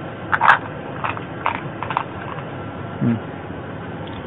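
A string of light clicks and knocks in the first two seconds, then a brief low grunt-like sound about three seconds in, over a steady low hum.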